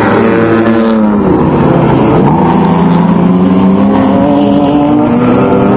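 Off-road race trucks' engines running loud, several at once at different pitches. Between about one and two seconds in, one engine's pitch falls steeply and then climbs again.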